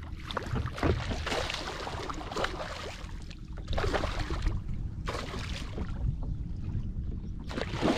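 Hooked giant snakehead thrashing at the surface beside a kayak, throwing up water in several splashy bursts.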